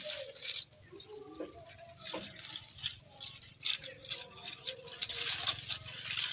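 Leaves and vine stems rustling and crackling as ivy gourd (kundri) fruits are pulled off the vine by hand, loudest in the second half.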